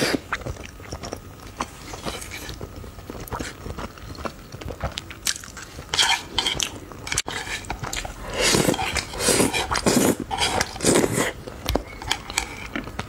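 Close-miked eating sounds: chewing noodles, with chopsticks clicking and scraping on a wooden plate. A run of louder mouth sounds comes about two-thirds of the way through.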